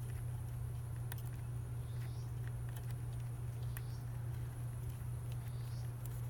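Steady low hum with scattered light metallic clicks and taps: a socket wrench on an extension being worked to back out a bolt on a motorcycle headlight bucket.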